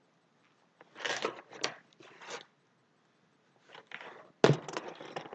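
Toy packaging crinkling and crunching in irregular bursts as it is pulled and worked at to free the toy, with a sharper, louder crackle about four and a half seconds in.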